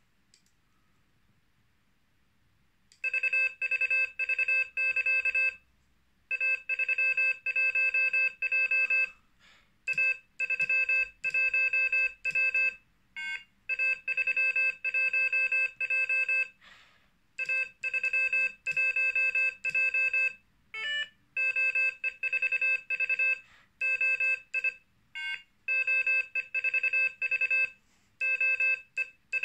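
Morse code tones from the Morserino-32's small built-in speaker, starting about three seconds in: a beeping note keyed on and off in dits and dahs, sending four-character call signs in groups of a few seconds with short gaps between them. This is the echo trainer at work, the device sending a call sign and the operator keying it back to it.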